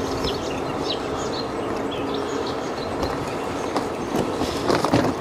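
E-bike ride on a canal towpath: steady rolling and wind noise with a faint hum, and birds chirping briefly in the first couple of seconds.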